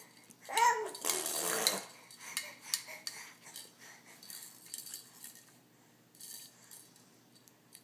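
A baby blowing a raspberry: a short high voiced squeal about half a second in runs into a spluttering burst of lip noise lasting about a second, followed by a few smaller sputters and clicks that die away.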